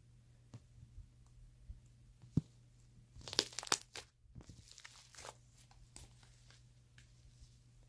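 Fluffy slime being handled, stretched and pulled apart by hand: scattered faint clicks, then a quick cluster of sharp crackly noises about three and a half seconds in, followed by a few softer pops.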